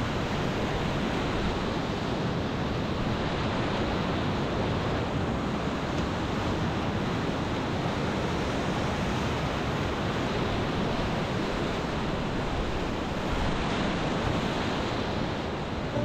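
Whitewater of a river rapid rushing steadily around a kayak, heard close up from the boat.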